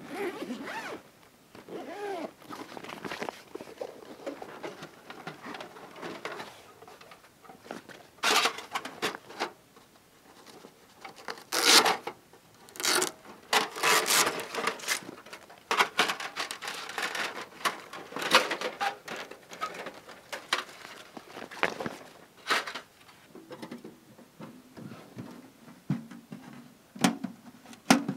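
Rustling of a nylon carry bag and irregular clinks and clatters of a FireHiking folding titanium wood stove's thin metal panels as it is taken out of the bag and unfolded.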